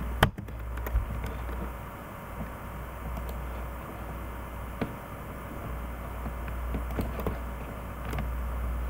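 A few sharp, separate clicks from computer mouse and keyboard use, over a steady low hum.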